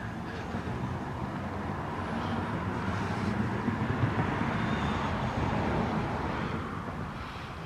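A road vehicle passing by: a rumble and tyre hiss that grows to its loudest about halfway through and then fades away.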